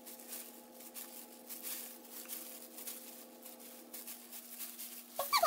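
Faint crinkling and rustling of disposable plastic gloves as gloved hands work a lock of hair, over a steady low hum.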